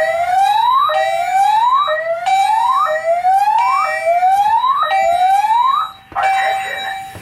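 Fire alarm voice-evacuation speakers sounding a whoop tone, a rising sweep repeated about once a second, over a steady alarm tone from the other notification appliances. A smoke detector set off with test aerosol has put the system into general alarm. The whooping stops about six seconds in, and the steady tone carries on.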